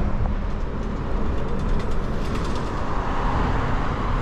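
Motor traffic passing close by on a busy road, with wind rumbling on the microphone.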